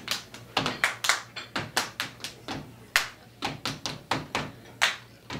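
Stomp-style body percussion by two performers: hand claps, slaps and foot stomps on a stage floor, sharp separate hits at about three a second in an uneven rhythm.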